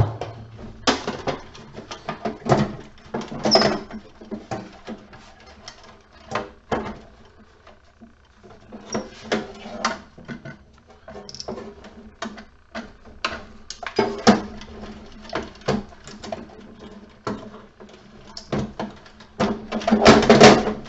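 Irregular clicks, clanks and knocks of the sheet-metal housing and parts of an emergency lighting unit being handled and pulled apart, with a sharp knock at the very start and a busier burst of clatter near the end.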